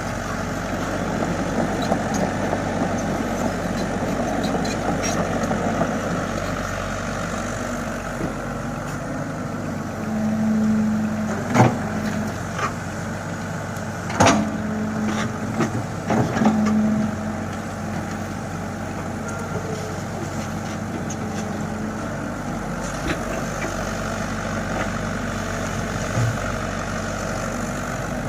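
Komatsu excavator's diesel engine running steadily as it digs sand, with a humming tone that comes in briefly in the middle and about three sharp knocks in the middle.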